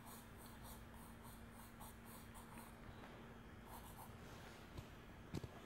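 Graphite pencil hatching on drawing paper: a quick run of short, faint scratchy strokes, about four a second, for the first couple of seconds, a few more near four seconds in, then a single sharp tap near the end.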